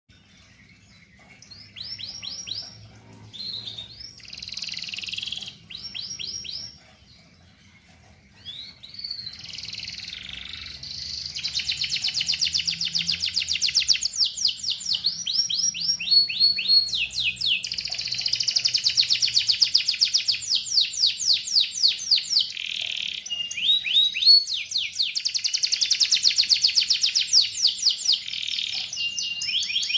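Domestic canary singing: short trilled phrases with gaps at first, then from about nine seconds in a long, almost unbroken song of fast, high rapid-repeat trills that grows louder.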